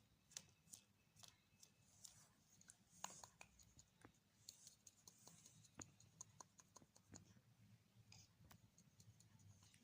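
Faint, irregular taps of a paintbrush dabbed against a canvas, dotting on white paint.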